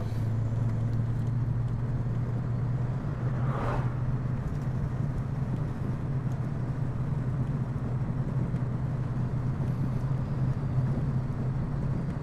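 Car engine and road noise inside the cabin of a moving sedan: a steady low drone.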